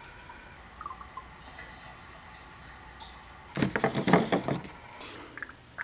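A thin stream of fuel stabilizer trickling faintly into an open snowmobile gas tank. About three and a half seconds in comes a second of loud, rapid clicking and rattling as a hand works the tank's filler cap.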